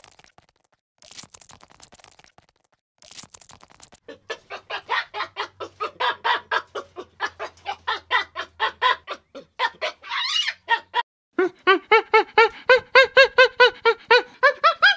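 Faint crackling at first, then a fast run of short, repeated animal calls, several notes a second, which grows louder about two-thirds of the way in.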